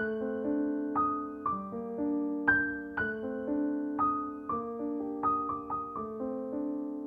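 Soft background piano music: a slow melody of single struck notes that ring and fade over held lower notes.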